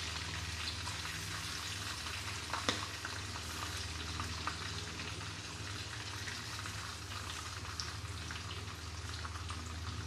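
Coated shrimp deep-frying in hot oil in a wok: a steady sizzle with fine crackling, and a few sharp clicks, the loudest about two and a half seconds in.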